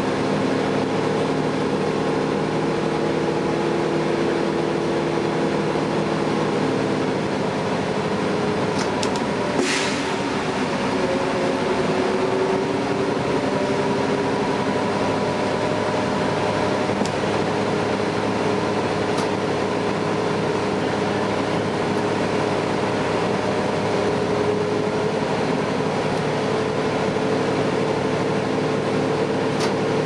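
Drivetrain of a 2011 Gillig Advantage low-floor bus, a Cummins ISL9 diesel with an Allison B400R automatic transmission, heard from inside the cabin while the bus is driving: a steady drone with several whining tones that drift slightly up and down in pitch. A brief high hiss about ten seconds in.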